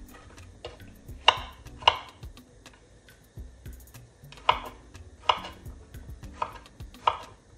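Kitchen knife cutting ripe plantain into chunks on a wooden chopping board: separate, uneven knocks of the blade striking the board.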